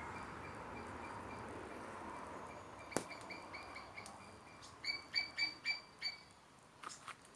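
A bird chirping: a run of short, high, clipped notes repeated about four times a second, loudest around five seconds in. Before it there is a steady background hiss and one sharp click.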